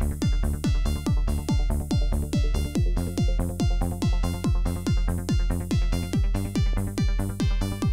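Electronic dance music with a steady kick drum at about two beats a second under a held synth chord.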